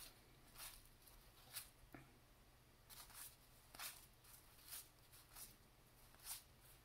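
Faint, short swishes of 1990-91 Pro Set hockey cards being slid one at a time off a stack as they are flipped through, roughly one a second, over near-silent room tone.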